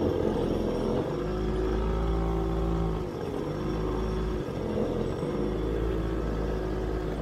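Quad bike (ATV) engine running while riding, its note rising and easing off with the throttle and dipping briefly about three seconds in and again near four and a half seconds.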